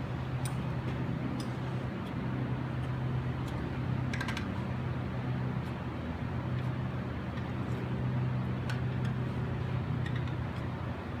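Large hand tin snips cutting sheet metal, giving a scattering of faint, irregular snips and clicks. A steady low hum runs under them.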